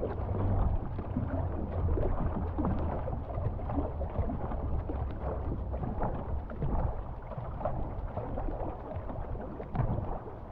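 Paddles splashing and water rushing along a canoe's hull as two paddlers stroke steadily, with wind rumbling on the microphone.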